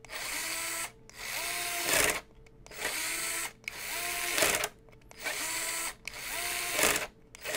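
Worx WX242L cordless electric screwdriver driving screws in short repeated runs. Each run starts with a rising whine, and about every second run ends in a sharp clack as the mechanical torque clutch slips at setting two, so the screw is not over-torqued.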